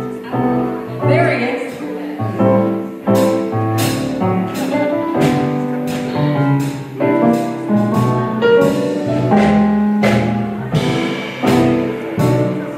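Small jazz band playing live: a hollow-body electric guitar picking out melody lines over a band accompaniment, with regular cymbal strokes keeping time.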